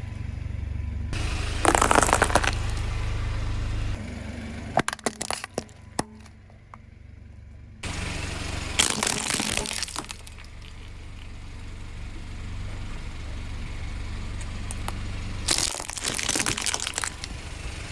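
A car's tyres crush objects as it rolls over them, with three loud crunching bursts spaced about seven seconds apart and a few sharp cracks in between. The engine's low hum runs underneath.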